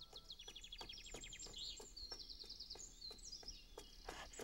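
Faint birds chirping, with quick high twittering trills and scattered short chirps.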